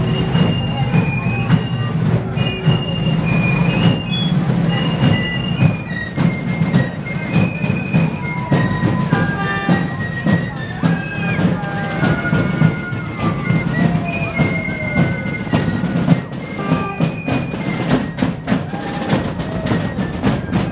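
Colonial fife and drum corps playing a march: fifes carry a high melody over dense, rapid drumming.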